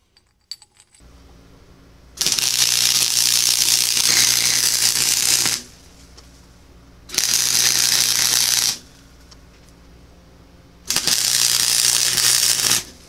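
MIG welder laying beads on black (non-galvanized) steel pipe fittings: three runs of steady arc crackle, about three and a half, one and a half and two seconds long, with a low hum between them. A few light clicks near the start.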